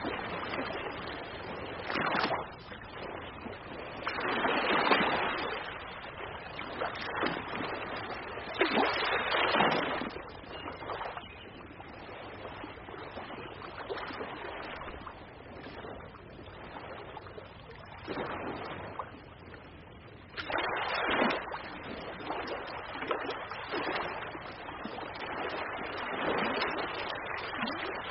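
Ocean waves breaking and washing in, a steady hiss that swells and eases with each wave every few seconds.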